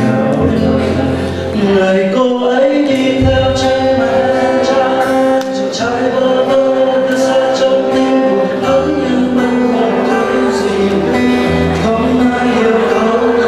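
A song played on acoustic guitar with a male voice singing long held notes over a fuller musical accompaniment.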